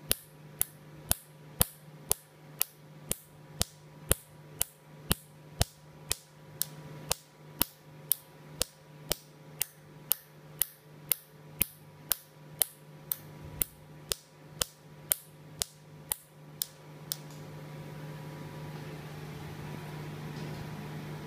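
Nd:YAG laser handpiece firing pulses onto skin coated in a black carbon mask, each pulse a sharp snap, about two a second, over a steady low hum. The snaps stop about 17 seconds in, leaving the hum and a rising hiss.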